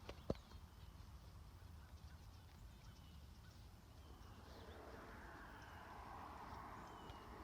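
Near silence: faint outdoor ambience with a few faint, short, high chirps, a single sharp click just after the start, and a soft hiss that grows slightly in the second half.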